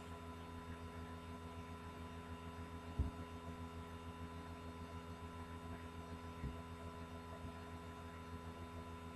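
Steady electrical hum with a fast low pulsing, and a single low thump about three seconds in, with a fainter one later.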